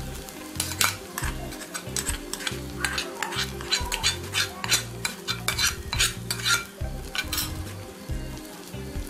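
Tempering of onions fried in hot coconut oil poured onto rice kanji in a clay pot, sizzling, while a metal spoon scrapes and clicks repeatedly against the pan and the pot rim.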